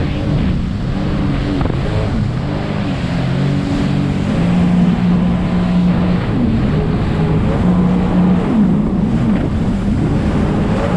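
Motorboat running under way, its engine note shifting up and down in pitch, under heavy wind noise on the microphone and rushing water.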